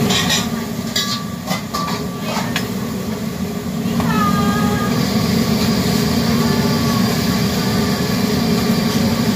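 Steady low rush of a restaurant wok range's gas burner and exhaust hood. In the first couple of seconds a metal ladle clanks and scrapes against the steel wok several times, then stops.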